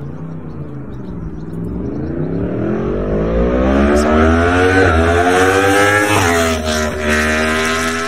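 Yamaha MT-10's crossplane inline-four accelerating hard up the road. Its pitch climbs in long rises, broken by quick upshifts about five and six seconds in, and it is loudest in the middle of the run.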